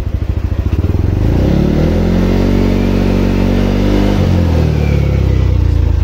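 Yamaha Aerox scooter's single-cylinder engine revved from idle: it rises about a second in, holds for a few seconds, then falls back toward idle near the end. The CVT, fitted with new torque drive, crankcase and primary drive bearings, no longer makes the earlier helicopter-like noise.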